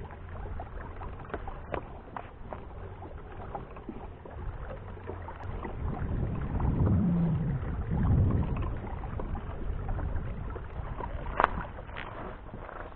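Pedal-drive fishing kayak underway on calm water: a low rumble of water and the drive that swells in the middle, with scattered light clicks and one sharp click near the end.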